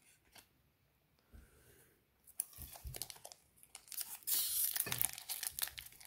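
A foil Pokémon TCG Cosmic Eclipse booster pack being torn open by hand. The wrapper crinkles and tears in a run of crackles that starts about two seconds in and is loudest near the middle.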